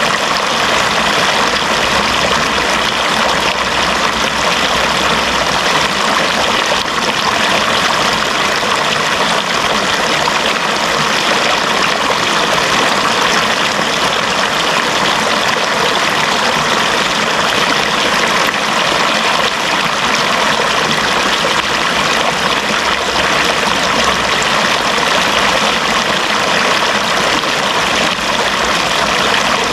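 Running water flowing steadily, an even, unbroken rush that does not change.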